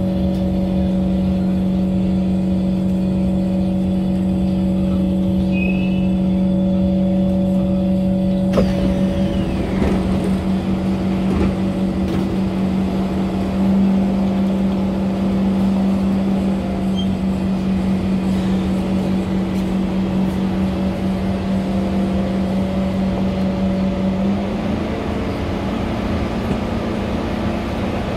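SMRT Kawasaki C151 train on the move, heard from on board: a steady hum in several tones over a rumbling running noise. About eight seconds in there is a click and the noise suddenly gets fuller and brighter, and near the end the hum shifts up slightly in pitch.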